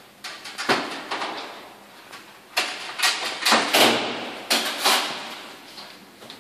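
Footsteps on a hard floor: a run of sharp knocks and taps, loudest in the middle at about two a second, each echoing briefly in the room.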